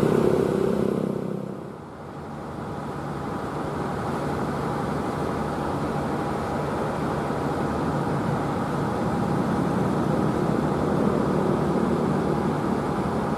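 KAI CC206 diesel-electric locomotive hauling a passenger train, its engine running steadily as it approaches and growing gradually louder. A different engine sound fades out about two seconds in.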